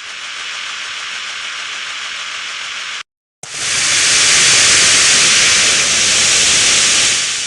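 Two hissing, noise-like ringtone sounds played back on an LG VX5600 Accolade phone. The first is steady for about three seconds and cuts off; after a brief gap a louder hiss swells in and fades out near the end.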